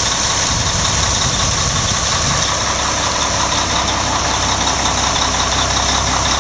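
Fire pumper truck's engine running steadily.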